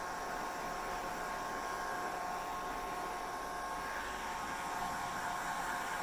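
Hair dryer running steadily: an even rush of blown air with a constant whine over it.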